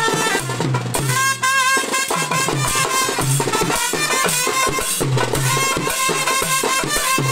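A Sri Lankan papare band playing: trumpets carry the tune over a steady, repeating drum beat. The drum drops out briefly about a second in, leaving held trumpet notes.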